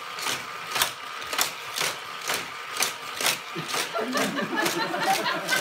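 Motorized Hot Wheels loop track set running: a steady mechanical whirr with a sharp clack about twice a second as toy cars are shot through the centre booster and around the loops.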